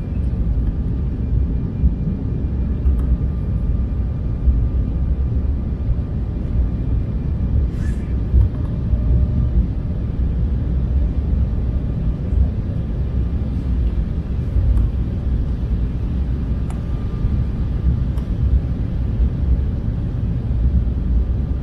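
Steady low rumble of engine and airflow noise inside the cabin of an Embraer jet airliner on final approach, with a faint steady whine over it.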